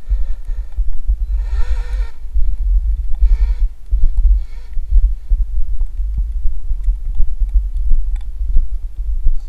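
Heavy, steady low rumble on the microphone, with brief rising-and-falling whines from the RC snowmobile's electric motor revving, about one and a half seconds in and again at three and a half seconds.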